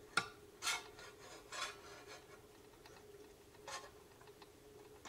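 A sharp click, then a few short scraping, rubbing sounds as the rod holding a styrofoam-ball Moon model is moved and repositioned.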